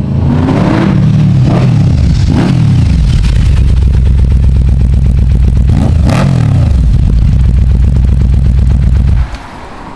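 2009 Yamaha VMAX's V4 engine through a Vance & Hines exhaust, running loud under throttle, its pitch climbing and then falling away twice. The sound drops off sharply about nine seconds in.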